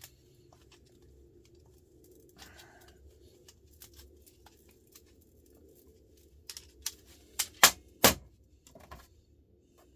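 Metal parts of a truck starter motor being handled and knocked together: scattered light clicks, then a few sharp knocks past the middle, the loudest two close together about two seconds before the end.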